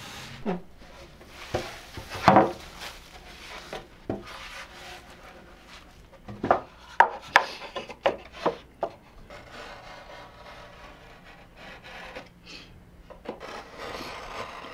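Wood being scraped and rubbed, with scattered sharp wooden knocks: one strong pair about two seconds in, and a quick run of them in the middle.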